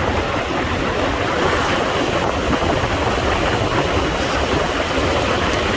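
Steady rushing wind noise over the microphone of a camera riding on a road bicycle moving at speed.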